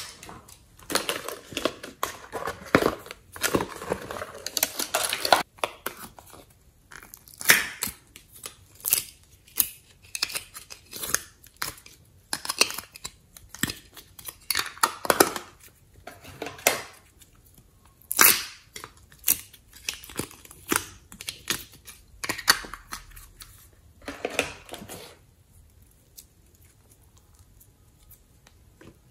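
Slime and soft clay squished out of plastic molds and stretched by hand: irregular sticky clicks, crackles and tearing pops. A dense run of crackling in the first few seconds gives way to separate pops, and it falls quiet for the last few seconds.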